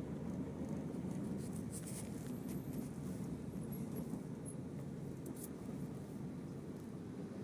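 Steady low rumble of a vehicle on the move, heard from inside, with a few faint light clicks and squeaks over it.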